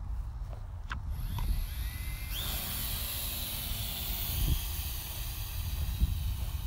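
Small drone's motors and propellers heard through its onboard camera, with a low wind rumble. About two seconds in a rising whine sets in, followed by a steady high hiss.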